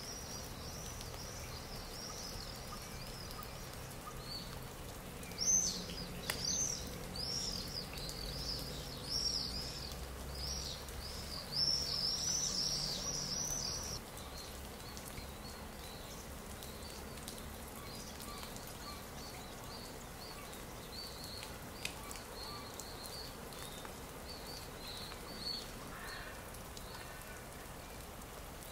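Stock nature ambience: birds chirping in quick, high, repeated notes over a steady background hiss. The chirping is loudest and densest from about five to fourteen seconds in, then thins to fainter calls.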